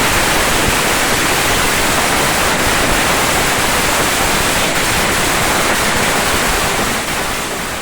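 Massed bottle rockets of a Yanshui beehive fireworks battery going off together in a dense, steady hissing crackle, easing slightly near the end.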